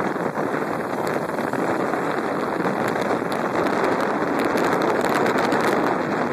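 Steady wind rush over the microphone of a moving motor scooter, blended with the scooter's running and road noise.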